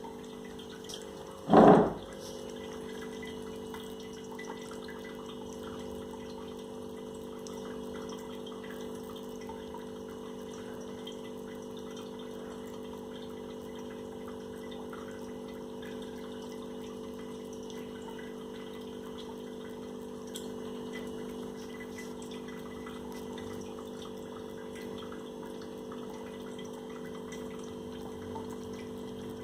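Steady mechanical hum with several fixed low tones, like a small electric motor running. About one and a half seconds in, a single short, loud sound rises above it.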